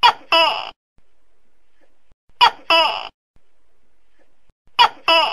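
Tokay gecko calling its two-note "to-kay" three times, one pair of short notes about every two and a half seconds.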